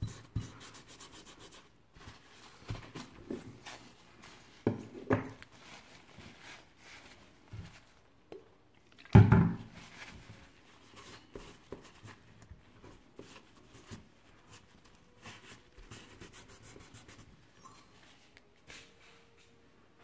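A paper tissue rubbing and wiping over the fins of an aluminium GPU heatsink, with scattered light clicks and rustles and one louder thump about nine seconds in.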